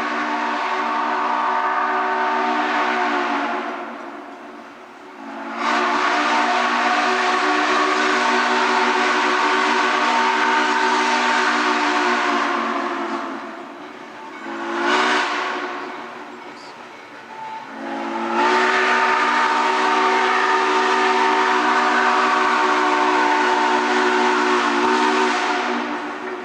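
Steam locomotive chime whistle, likely C&O 2-6-6-2 No. 1309's, blowing the grade-crossing signal: a long blast ending a few seconds in, another long blast, a short toot, then a final long blast that ends just before the close. Each blast is a multi-note chord with a hiss of steam.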